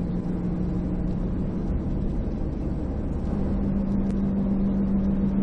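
Car being driven: steady engine hum and road noise, the engine's tone rising slightly a little over three seconds in.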